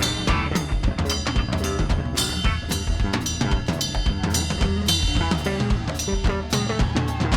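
Live band playing an instrumental passage: a drum kit groove of kick, snare and rimshot hits over bass and other sustained instrument notes.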